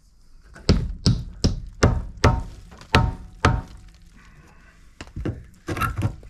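Hammer blows on wooden framing: a run of about seven strikes at two or three a second, a pause, then a few quicker strikes near the end.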